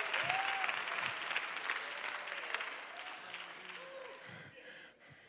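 Congregation applauding, the clapping dying away over the last two seconds.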